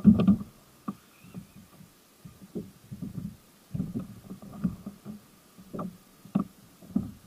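Irregular low knocks and bumps, coming every half second to a second, from a kayak as a hooked bluefish is fought on the line.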